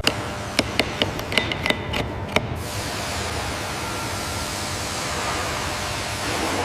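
About eight sharp, ringing knocks like hammer blows on metal over the first couple of seconds, then a steady hiss for the rest.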